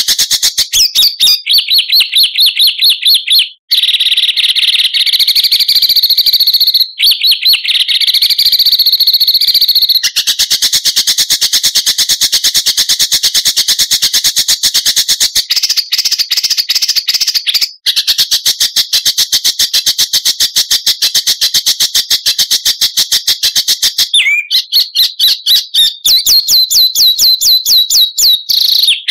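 High-pitched songbird song made of very fast, tightly repeated chip notes, the rapid-fire 'tembakan' phrases of a masteran training track. The phrase type switches several times, with a few abrupt cuts where one recording gives way to the next.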